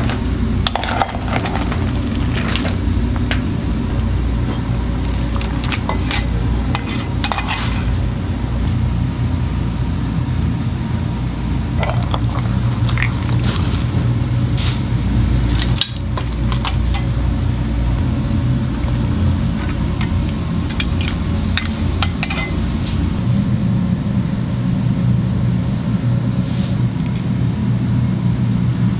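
Kitchen clatter: metal ladle, pans and tongs clinking now and then over a steady low rumble from the gas burners and kitchen.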